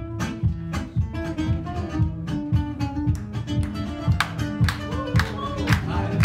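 Two acoustic guitars playing a Gypsy-style tune live: a steady strummed rhythm under a picked melody line.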